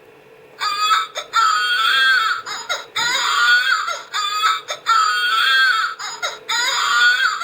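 Toy baby doll's electronic sound module playing a recorded infant cry: several wailing cries in a row, starting about half a second in.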